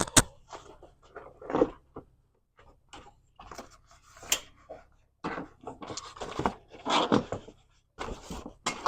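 Irregular clicks, knocks and scraping of hard plastic as a loosened car door trim panel is handled, with a sharp click about a fraction of a second in.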